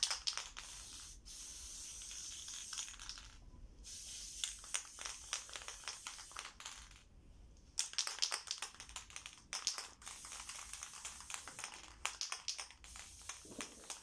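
Aerosol spray-paint can spraying in several long hissing bursts with short pauses between them, with a crackle in the hiss. The can is spitting paint out unevenly and leaving speckles on the part.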